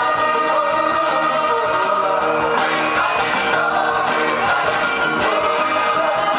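Pop song with singing, played loud and steady as dance music.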